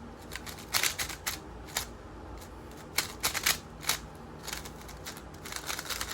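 X-Man Tornado V3M magnetic 3x3 speed cube being turned quickly by hand: bursts of rapid light plastic clicks with short pauses between them. A quiet-turning cube.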